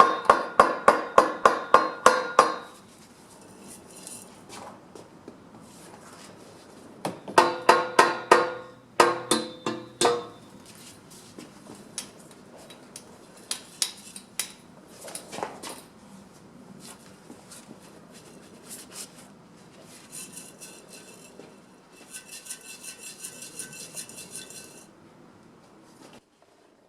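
A hammer striking metal in two quick runs of ringing blows, about four a second, with scattered lighter taps and clinks between them. Near the end comes a quieter, fast metallic rattle.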